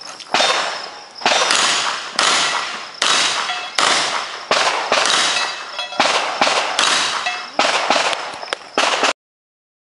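Smith & Wesson 610 revolver fired in a steady string, about a dozen shots roughly one a second, each with a short echo. The sound cuts off abruptly just after nine seconds.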